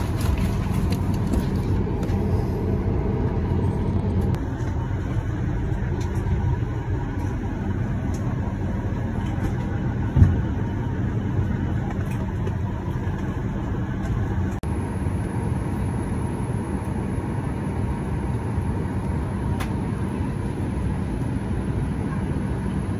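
Steady cabin noise inside a Boeing 737-800 parked at the gate: a low air rush with a steady hum, typical of the cabin air-conditioning running. A single knock sounds about ten seconds in.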